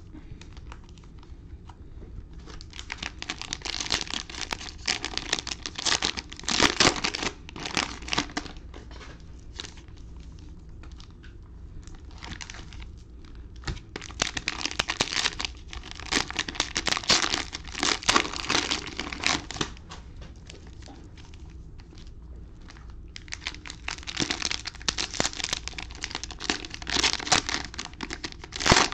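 Cellophane wrappers of trading-card cello packs being torn open and crinkled, in three long bouts with quieter pauses between.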